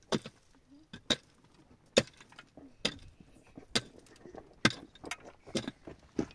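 Repeated blows of a hand tool, evenly spaced at about one a second, each a sharp strike with a slight clink.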